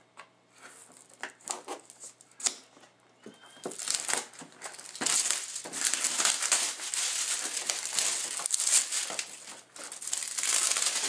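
Clear plastic shrink wrap being picked at, torn and peeled off a cardboard box: a few scattered crackles and small tears at first, then continuous loud crinkling from about four seconds in.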